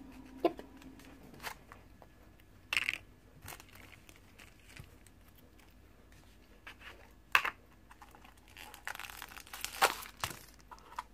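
A small plastic toy jar being handled and twisted open, giving a few separate sharp clicks and snaps, then crinkling of the plastic blind-bag wrapper from inside it near the end.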